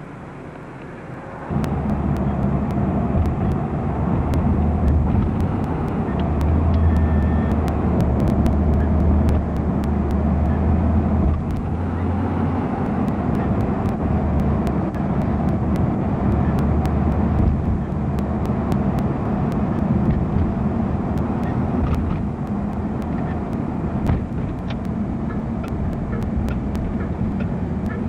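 A car being driven, heard from inside through an open window: a steady low rumble of engine and road noise that starts abruptly about a second and a half in.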